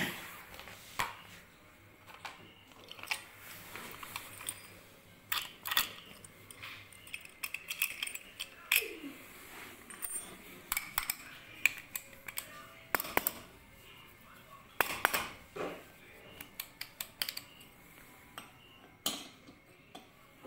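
Sharp metallic clicks and clinks of a steel padlock being handled and set down on a concrete floor, scattered irregularly throughout.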